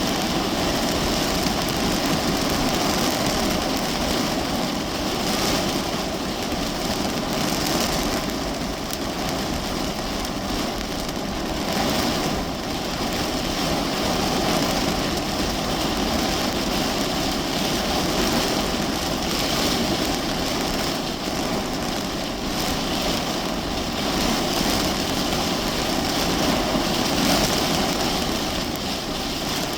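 Heavy rain falling steadily on the roof and windows of a parked car, heard from inside the cabin as an even, unbroken hiss with slight swells.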